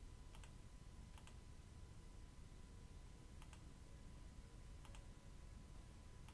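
Faint computer clicks, about five spread a second or more apart, each a quick double tick, over near-silent room tone.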